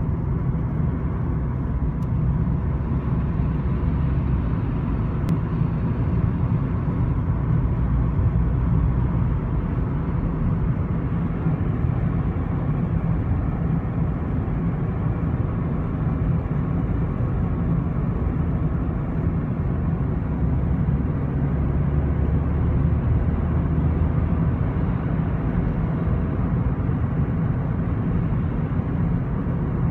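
Steady road and engine rumble inside a 2014 VW Golf Mk7 GTI's cabin while driving, with a faint rattle from a door. The rattle stops when the door window is lowered slightly, which points to the window glass against its seal.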